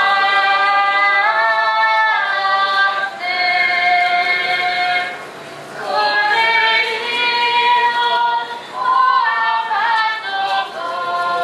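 A group of voices, mostly women's, singing a processional hymn together in long held notes, with a short break between phrases about five seconds in.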